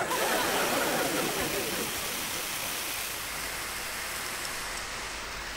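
Fire hose jet spraying water, a steady rushing hiss that starts suddenly and is a little louder over the first couple of seconds.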